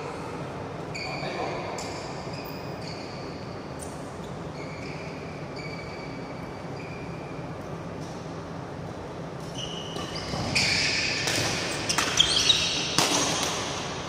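Badminton players' court shoes squeaking on the court mat, a handful of short squeaks through the first ten seconds. From about ten and a half seconds in, a rally: several sharp racket strikes on the shuttlecock mixed with quick squeaking footwork.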